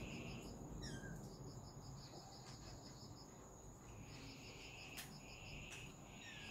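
Crickets and other insects chirping faintly: a steady high trill under evenly pulsed chirping, with a second, lower trill that comes and goes. A short falling chirp sounds about a second in and again near the end.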